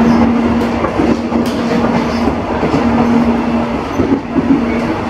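Railink airport electric multiple-unit train running, heard from inside the carriage: a steady rumble of wheels on the track with a low hum that comes and goes and scattered light knocks.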